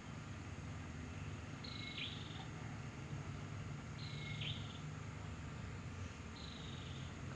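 A high, thin animal call repeating three times, each under a second long and falling slightly in pitch, about two and a half seconds apart, over a faint steady low hum of riverside background.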